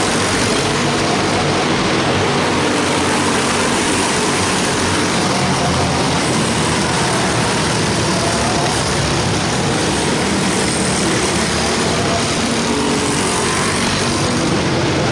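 A pack of small race cars running laps together on an indoor oval track. Their engines make a steady, continuous drone that swells a little as the cars pass, carried by the large arena's hall.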